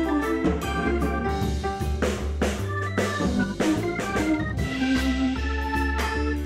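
Background music: organ-like chords over a bass line, with drums keeping a beat.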